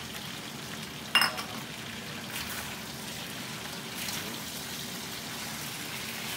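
Lobster pieces sizzling steadily in a hot wok as garlic and ginger sauce is tipped in and stirred through. A sharp metallic clink about a second in rings over the sizzle, with a few lighter utensil clicks later.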